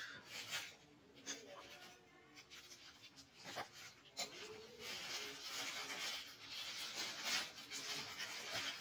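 Tissue paper and plastic wrapping rustling and crinkling as they are handled to unwrap a pair of sunglasses, soft and uneven, with a few sharp crackles.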